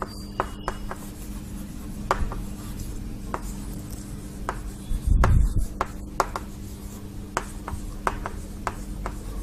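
Chalk on a blackboard as words are written: a run of short, sharp taps and scrapes at uneven spacing, over a faint steady hum. A dull low thump comes about five seconds in.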